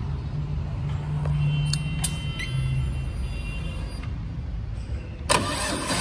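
Harley-Davidson Heritage Softail Classic being started: a low steady hum with a few light clicks, then about five seconds in the electric starter engages and the engine cranks, suddenly much louder.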